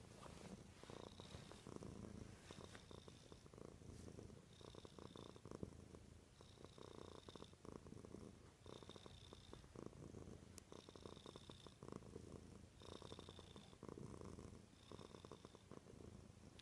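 A cat purring faintly and steadily, the purr swelling and easing in a regular cycle about every two seconds.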